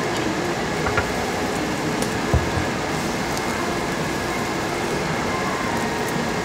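Meat sizzling on a charcoal table grill under a copper extraction hood, with the hood's steady rushing hum. A couple of light clicks of tableware sound about a second and two and a half seconds in.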